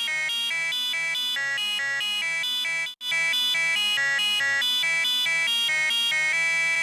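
Electronic fire alarm tone edited with pitch effects, stepping between different pitches about four times a second like a melody. It cuts out for an instant about three seconds in, then comes back slightly louder.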